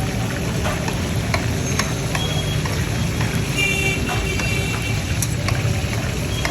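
Busy roadside ambience: a steady low rumble with scattered sharp crackles, and a brief high, horn-like tone a little past the middle.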